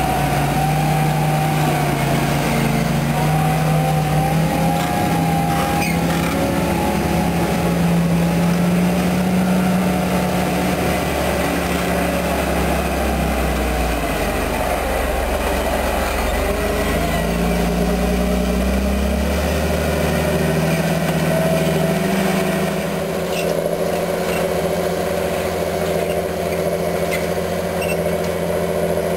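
John Deere 8530 tractor's six-cylinder diesel engine running steadily while it pulls a five-shank subsoiler through the soil. The engine note shifts in pitch and changes in character about two-thirds of the way through.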